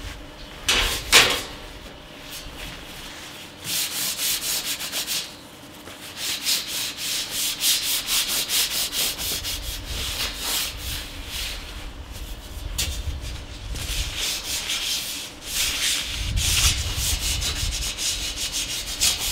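Paper towel rubbed back and forth over the perforated side panel of a PC case, wiping off stuck dust: a run of quick hissing strokes, a few a second, after a brief louder rustle of the paper about a second in.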